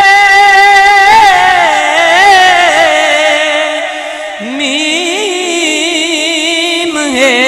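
Unaccompanied voice singing a devotional Urdu salam (naat): a long held note, then a wavering, ornamented run. A second, lower voice takes up the melody about four and a half seconds in.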